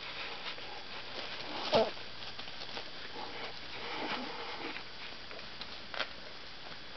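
Puppies scrambling about on a blanket under their standing mother, with light pattering and rustling. A brief louder sound comes a little under two seconds in, and a sharp click comes about six seconds in.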